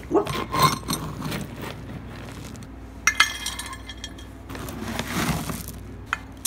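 Dry dog kibble scooped with a metal measuring cup and poured into a dog bowl, the pellets rattling and clinking against the cup and bowl in several bursts.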